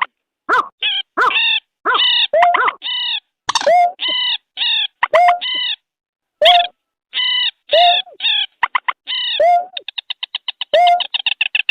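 A bird-lure recording of rail (mandar) calls combined with another bird's calls: short, repeated arching calls with a lower hooked note, about one or two a second, breaking into a fast rattling series of about ten notes a second near the end. The gaps between calls are dead silent.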